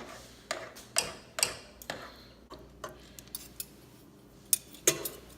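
Metal kitchen utensils clicking and tapping against a cooking pot: a dozen or so irregular light knocks, about one every half second.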